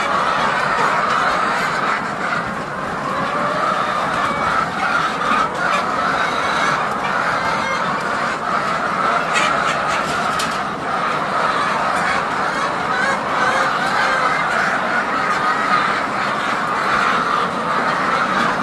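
A large flock of laying hens calling all at once in a dense, continuous clamour: the excited din of chickens crowding in at feeding time.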